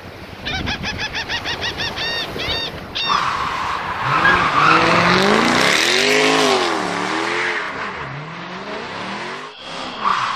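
Racing-car sound effect: an engine revving, its pitch rising and falling several times over a dense hissing noise. It is opened by a quick run of repeated high chirps lasting about two and a half seconds, and there is a brief drop-out near the end.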